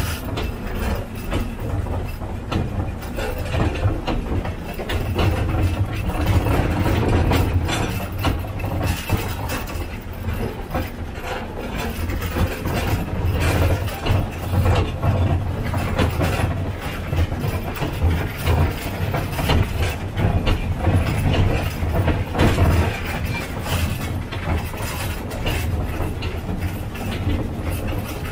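Narrow-gauge field-railway train running along its track: a steady low engine drone with irregular clatter and clicks from the wheels and wagons over the rails.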